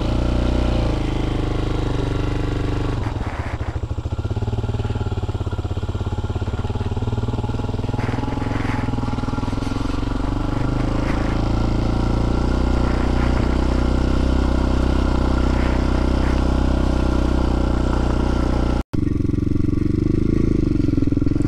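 TaoTao TBR7 motorcycle engine running as the bike pulls away from a standstill and rides on, fitted with a new chain and a 17-tooth front sprocket. The engine note is steady, with a brief cut-out about 19 seconds in and a rise in pitch near the end.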